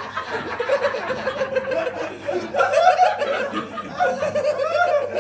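People chuckling and laughing, with a faint steady hum underneath.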